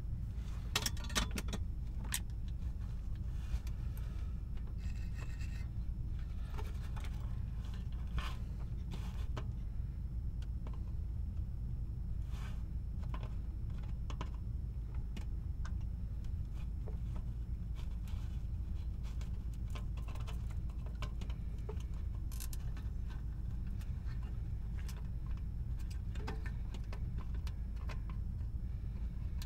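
Scattered light clicks and scrapes of small parts or tools being handled, over a steady low hum.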